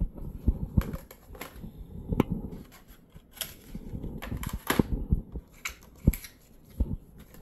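Unboxing handling noise: a black plastic parts tray and paper inserts picked up, moved and set down on a wooden table, giving a string of irregular clicks and knocks.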